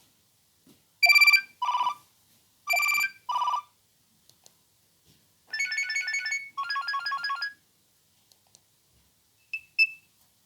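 Nokia 3120 mobile phone playing ringtones through its small speaker: a loud two-note electronic phrase played twice, then a fast warbling trill in two parts, then two short high beeps near the end, with silent gaps between them.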